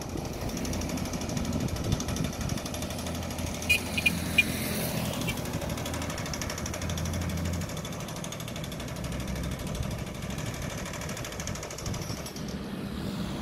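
Machinery running: a steady low drone with a fast rattle, which eases off about halfway through, and a few short high chirps about four seconds in.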